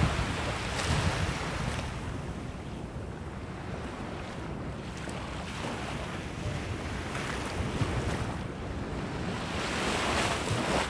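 Small waves breaking and washing up a sandy beach, with wind buffeting the microphone. The surf swells louder near the end.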